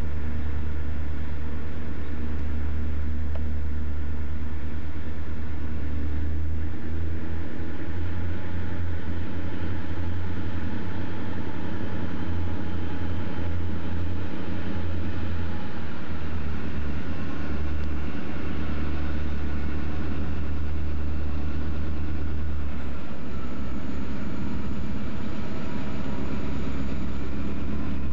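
Guilford EMD GP35 diesel locomotives with turbocharged 16-cylinder engines running as the lead unit approaches slowly, a steady low rumble.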